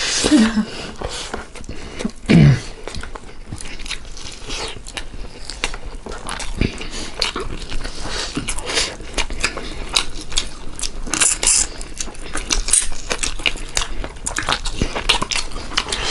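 Close-up eating sounds: wet chewing, lip-smacking and many sharp mouth clicks as handfuls of rice and meat curry are eaten. A short falling hum about two seconds in is the loudest moment.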